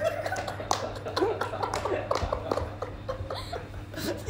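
Several people chuckling and laughing in short bursts, with a few brief voice sounds mixed in.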